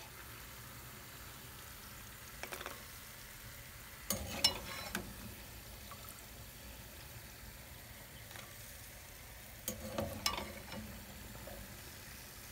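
Lokma dough balls frying in hot oil, a steady sizzle. A metal slotted skimmer clinks against the pan in a few short bursts as it scoops out the fried balls, the loudest about four seconds in and another about ten seconds in.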